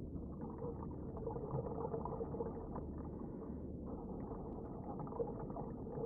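Muffled underwater sound of scuba divers breathing out through their regulators: a crackling bubbling with a faint steady hum beneath it, dipping briefly about two-thirds of the way through.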